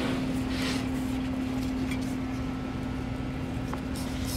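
Steady machine hum with one low tone, like a fan or cooling unit running in the room, with a few faint rustles and clicks from handling.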